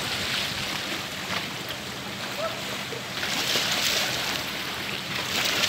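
Small lake waves washing against a rock shoreline, swelling about three seconds in and again near the end, with faint distant voices.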